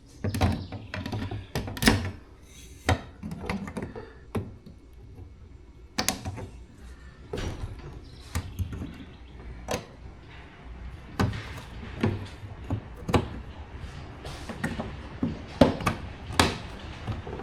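The retaining clips of a John Deere 445 garden tractor's front cowl are being pressed in with pliers until they pop into place. This gives an irregular series of sharp clicks and knocks, roughly one a second.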